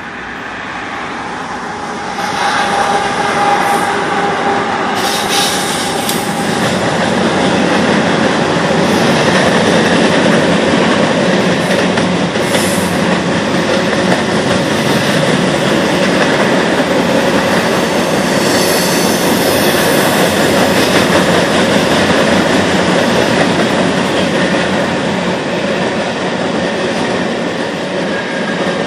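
Freight train of covered hopper cars rolling past, a steady rumble and clatter of steel wheels on the rails that grows louder about two seconds in. Brief high wheel squeals come now and then.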